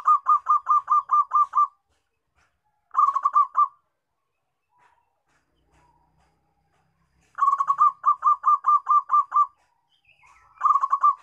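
Zebra dove (perkutut) cooing in phrases of quick staccato notes, about five a second. A long phrase comes at the start, a short one about three seconds in, another long one after about seven seconds, and a short one near the end.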